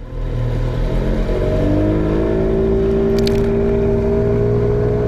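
Motorboat engine sound, a steady low rumble with a hum that rises slowly in pitch as if the boat is speeding up, and a brief crackle about three seconds in.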